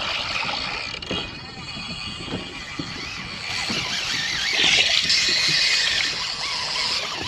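Fishing reel drag screaming as a big redfish strips line: a wavering high whine that swells to its loudest about halfway through.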